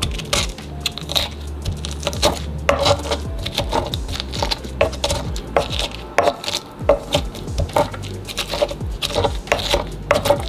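Stone pestle pounding and crushing garlic cloves in a stone mortar, an irregular run of repeated knocks and thuds.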